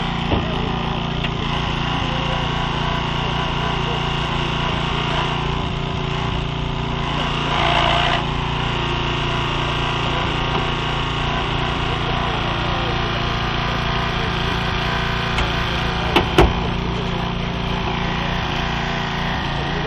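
Small petrol engine of a hydraulic rescue-tool power unit running steadily while a hydraulic cutter works on a car's body. A short noisy burst comes about eight seconds in, and two sharp cracks about sixteen seconds in.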